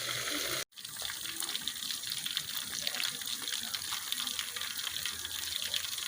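Catfish frying in hot oil in a covered pan: a steady sizzle with fine crackles and pops, broken by a short gap less than a second in.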